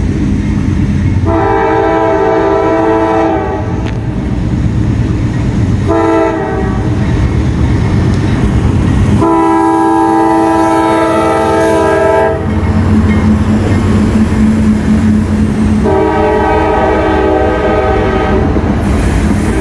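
Diesel freight locomotive's air horn sounding four blasts, long, short, long and long, the crossing warning as it nears a grade crossing. The heavy rumble of the locomotives and the train rolling by runs underneath.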